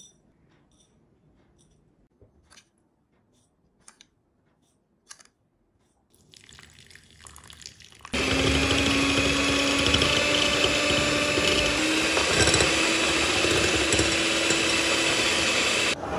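Faint spoon clicks against a ceramic bowl, then water poured in about six seconds in. From about eight seconds in, an electric whisk runs steadily for about eight seconds, whipping instant coffee, sugar and water into a thick foam. Its motor hum rises slightly about halfway through.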